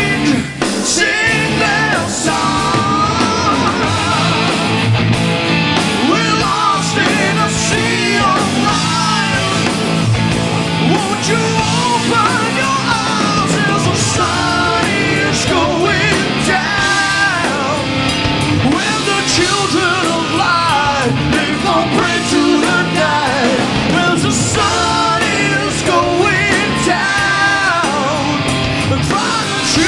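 Hard rock band playing live: lead vocals over electric guitar and drums.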